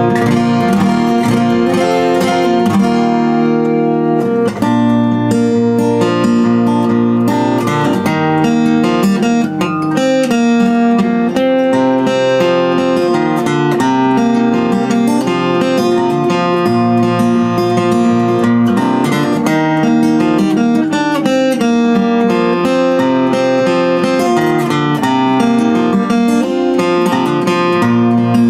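Handmade acoustic guitar played fingerstyle: a continuous piece of picked notes and chords ringing on.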